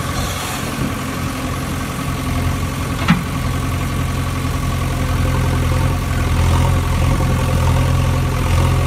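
An engine idling steadily at an even pitch, with one brief sharp click about three seconds in.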